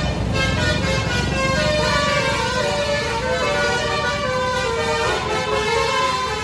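Bus telolet musical air horn (Basuri type) playing a tune of short notes that step up and down in pitch, over the rumble of the bus's engine.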